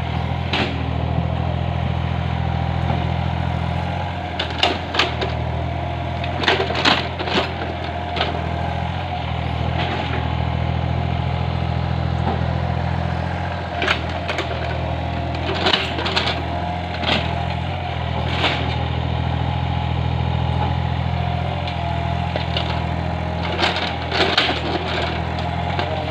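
Yanmar 35 mini excavator's diesel engine running steadily under work, with scattered bursts of sharp knocks and cracks from the machine working soil.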